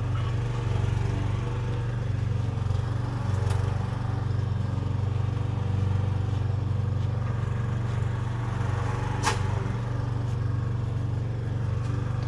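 A steady low machine hum, with a sharp click about nine seconds in.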